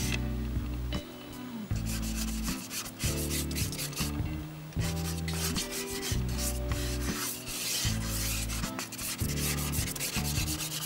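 Soft pastel stick scraping across abrasive sanded pastel paper (UART) in repeated short strokes, a dry, gritty rubbing as the underpainting is blocked in.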